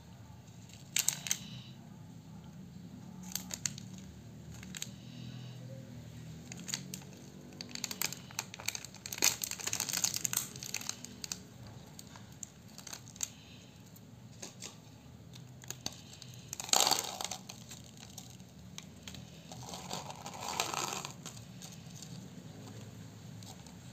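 Thin plastic candy sachets crinkling and being torn open by hand, in scattered crackly bursts and small clicks, with the loudest bursts in the second half. A faint low steady hum runs underneath.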